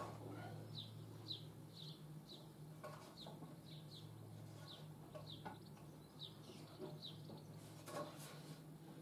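A small bird chirping over and over, short falling high notes about two a second, faint, over a steady low hum and a few light knocks.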